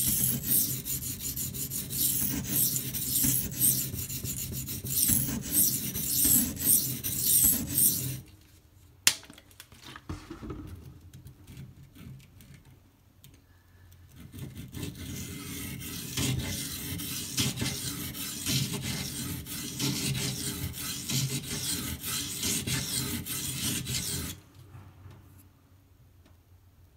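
Steel knife blade stroked back and forth on a wet 240-grit silicon carbide water stone, a rhythmic gritty scraping while the edge is reground at a chip. The strokes stop about 8 seconds in, a single click follows, and the scraping resumes from about 14 seconds until near the end.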